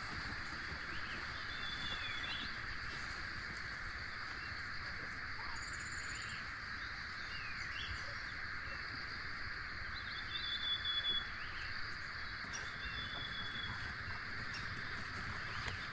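Steady chorus of insects, with birds chirping and giving short whistled calls here and there, a cluster of them about two-thirds of the way in.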